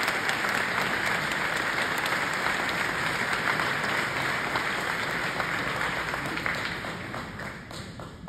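Audience applauding, dense clapping that dies away over the last second or so.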